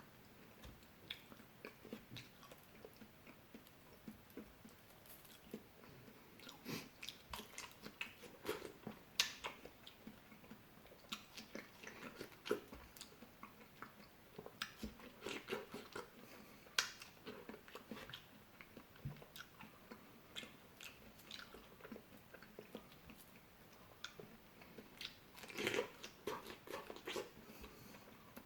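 Person chewing and biting fruit close to the microphone: irregular wet smacks and crunches, with a few louder bites scattered through.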